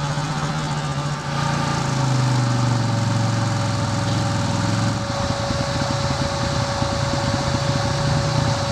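Side-by-side UTV engine running, its pitch easing down over the first few seconds and then holding steady.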